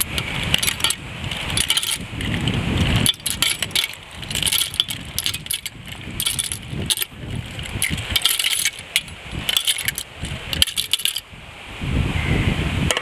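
Clam shells clinking and clattering as they are pushed off a plate into a metal pot of curry: a dense run of small clicks that stops about eleven seconds in. A low rumble sits underneath near the start and again near the end.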